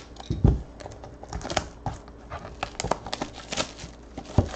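Cellophane shrink-wrap crinkling and tearing as a boxed set of football cards is unwrapped, with scratchy rustles and clicks. Two dull thumps, one about half a second in and one near the end, as the cardboard box knocks against the table.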